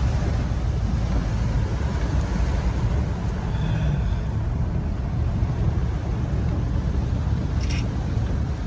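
Inside a car driving through heavy rain: a steady low rumble of engine and tyres on the wet road, under a constant hiss of rain and spray. A brief sharp sound cuts through near the end.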